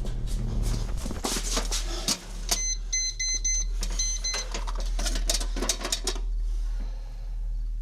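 Designed effects: a quick series of mechanical clicks and clatters over a steady low hum, with a run of short high electronic beeps near the middle.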